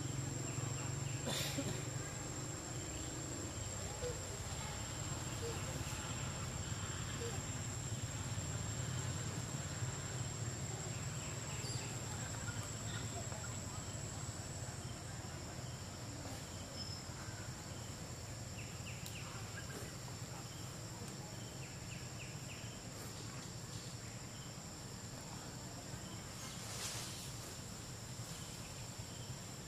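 Steady high-pitched insect drone, with a low hum underneath.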